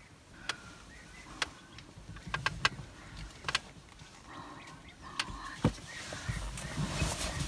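Scattered sharp clicks and soft knocks inside a vehicle cab, several close together about two and a half seconds in, over a low rumble that grows louder near the end.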